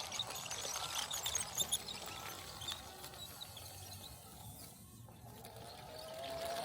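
Faint bird chirps, scattered mostly through the first half, over a low steady hum.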